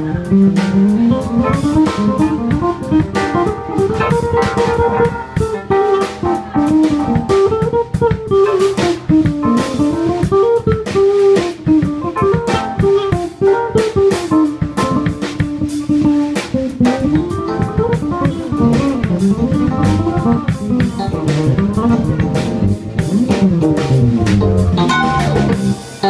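An electric bass guitar and a drum kit playing live together. The bass plays runs of notes that climb and fall over the drums.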